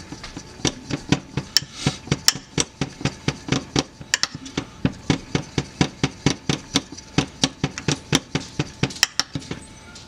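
A metal fork clinking against the sides and bottom of a glass dish as it beats a thick sauce, about four quick clicks a second.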